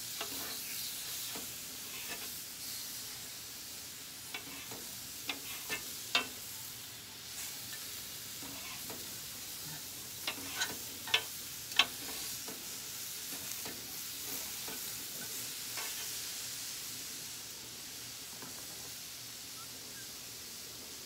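Steak pieces sizzling on a hot flat-top griddle, with a steady hiss. A metal spatula strikes and scrapes the griddle surface as the meat is cut and turned, giving several sharp clacks, the loudest about six seconds in and again around eleven to twelve seconds in.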